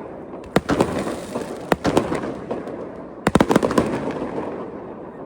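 Fireworks going off: single sharp bangs about half a second, one and two seconds in, then a rapid cluster of bangs a little after three seconds. Crackling and rumbling runs between the bangs and dies away near the end.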